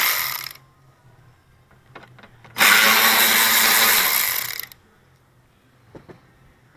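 Power drill-driver with a T20 Torx bit spinning out fender liner screws: a run that stops about half a second in, then a second run of about two seconds, with a few light clicks between.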